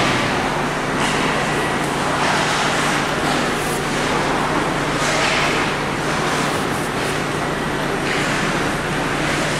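Noisy hockey-arena ambience during play: a steady low hum under a general wash of crowd and game noise, with several hissy swells.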